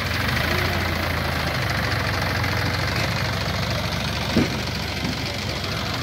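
Diesel engine of a Sonalika farm tractor running steadily as it pulls a trailer across loose soil.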